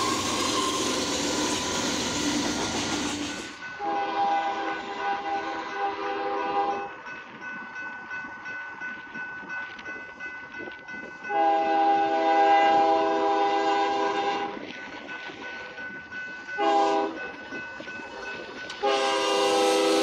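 Diesel locomotive air horns sounding a chord of several notes. First a freight train rumbles past close with its horn on. Then an approaching locomotive blows two long blasts and a short one, the opening of the grade-crossing warning pattern, with quieter rail noise between. Near the end another locomotive's horn passes close, its pitch dropping as it goes by.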